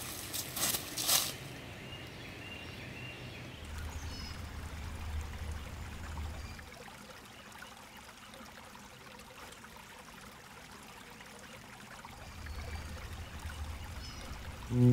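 A few footsteps in boots on dry leaf litter in the first second or so, then faint, steady woodland ambience with a low rumble that comes and goes twice.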